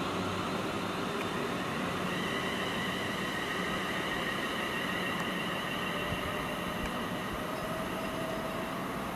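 Electric passenger train running along the track at the station, with a steady rumble of wheels on rail and several whining tones over it.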